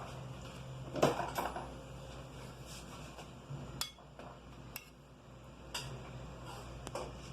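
Metal spoon clinking and scraping on a plate while cutting cooked beef tongue: a handful of scattered clinks and taps, the loudest about a second in.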